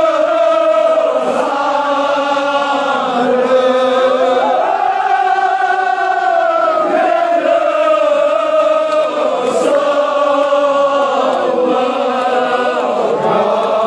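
A large crowd of men chanting a Kashmiri noha (mourning lament) together in unison, in long drawn-out lines with no pauses.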